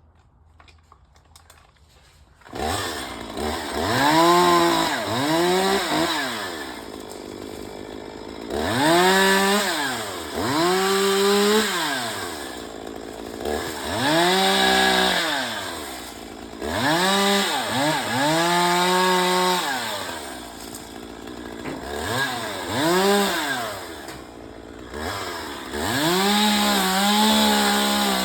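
Chainsaw starting up about two and a half seconds in, then revved up and back down to idle over and over, about ten times.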